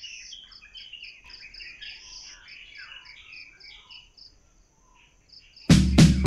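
Crickets chirping, about three to four chirps a second, with birds calling. The chirping stops after about four seconds, and near the end loud acoustic guitar music starts.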